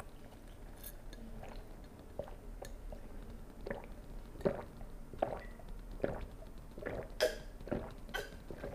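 A man gulping water from a glass, a run of soft, quick swallows about every three-quarters of a second through the second half, picked up close by a chest-clipped microphone.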